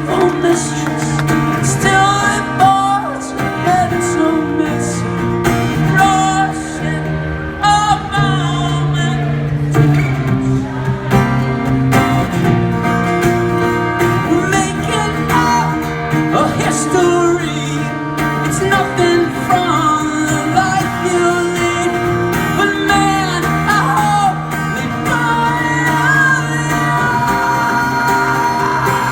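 Live band performance with guitar and singing, amplified through a concert PA; the vocal line continues without a break.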